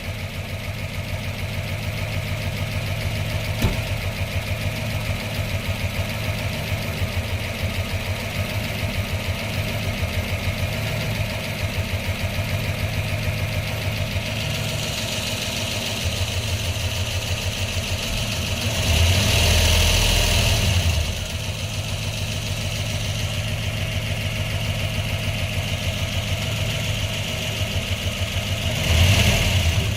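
Pontiac Trans Am WS6's LT1 V8 with long-tube headers idling with an even pulsing exhaust beat, while it throws a cylinder 1 misfire code (P0301). It runs louder for about two seconds around two-thirds of the way through and briefly again near the end.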